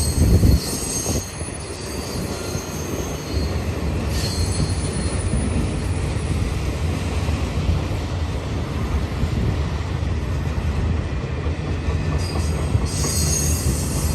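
Freight train of empty intermodal well cars rolling past at close range: a steady rumble of wheels on rail, with high-pitched wheel squeal at the start, again about four seconds in, and near the end. A loud thump comes right at the start.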